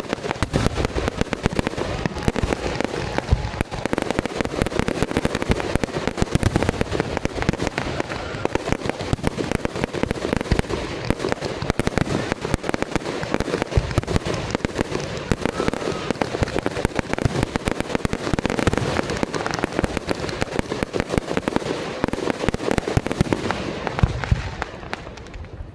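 A dense, unbroken barrage of fireworks: many bangs and crackles overlapping with no pause, thinning out a little near the end.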